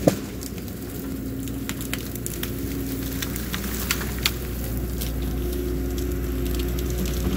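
Cat 314 excavator's diesel engine running steadily under load as the machine lifts and swings a bucketful of brush, with branches snapping and crackling throughout. The sharpest snaps come right at the start and about four seconds in.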